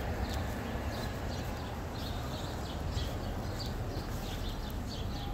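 City street ambience: a steady low traffic rumble, with small birds chirping over and over in the bare trees.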